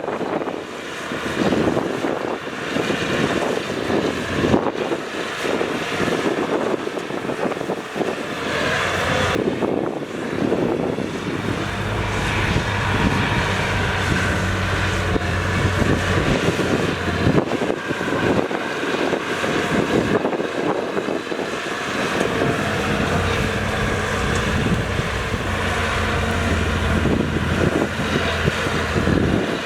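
Heavy diesel earthmoving machinery running at a dirt fill site, a steady engine rumble with clatter. The engine hum grows steadier and stronger about a third of the way in.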